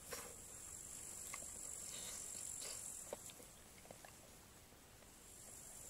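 High, steady chirring of insects in summer grass. It stops about halfway and starts again near the end. Faint small clicks of someone chewing meat off a pork rib are heard between.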